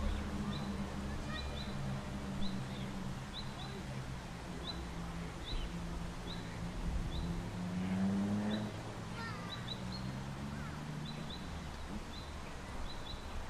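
A low motor hum, most likely a radio-controlled model boat's motor, running steadily and rising in pitch about eight seconds in, under small birds repeatedly chirping.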